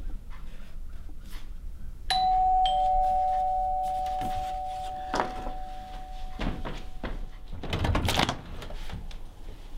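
Two-tone doorbell chime: a higher note, then a lower note about half a second later, both ringing and fading over a few seconds. A couple of soft knocks follow, then a louder scuffing noise near the end.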